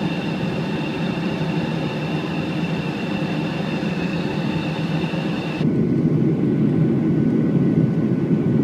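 Steady airliner cabin rumble with a faint high whine over it. About halfway through it cuts abruptly to a louder, deeper rumble with no whine.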